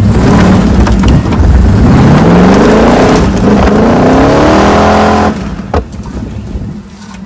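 Four-wheel-drive's engine revving hard as its tyres spin on loose sandy gravel, throwing up dirt and stones; the engine note climbs for a few seconds, then cuts off abruptly about five seconds in as the throttle is lifted, followed by a single sharp knock.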